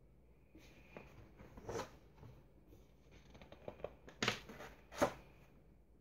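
A softcover picture book being handled and its cover opened: short, soft paper rustles and slides, the loudest about four and five seconds in.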